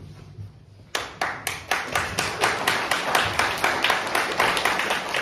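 Clapping starts about a second in, a steady run of about four sharp claps a second over a haze of other clapping, growing louder. It follows the last fading chord of the ensemble's tarantella: applause at the end of the piece.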